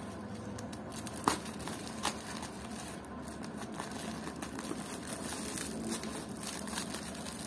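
Plastic mailer bag and packing tape crinkling as the parcel is handled and cut open with scissors, with two sharp clicks, about one and two seconds in.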